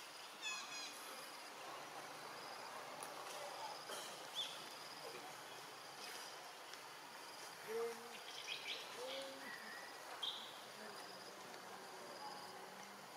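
Forest ambience: a steady insect hiss with a few short high chirping calls scattered through, and two short low hoot-like calls a little over halfway through.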